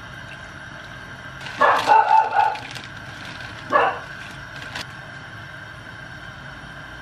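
A dog barking: a quick run of barks about a second and a half in and a single bark near the four-second mark, with a plastic bag of baby spinach crinkling as it is handled.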